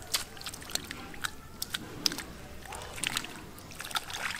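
Hands working through wet mud and shallow water: irregular squelches, wet slaps and small splashes.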